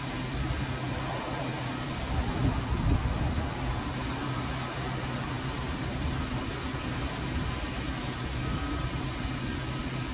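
Steady low engine-like hum, briefly louder about two to three seconds in.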